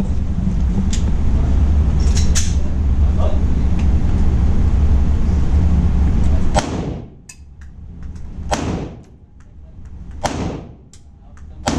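A steady low rumble, which stops about six and a half seconds in, followed by a 9mm pistol fired four times, sharp shots roughly two seconds apart, each with a short ringing echo.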